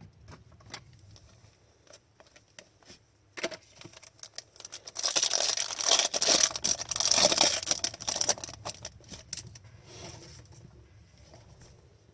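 Foil wrapper of a trading-card pack being torn open and crinkled, loudest for a few seconds in the middle, with light clicks and rustles of cards being handled before and after.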